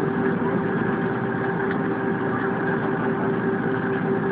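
Airbus A320 cabin noise: the engines and air systems run with a steady hum, a constant mid-pitched tone held over an even rushing noise.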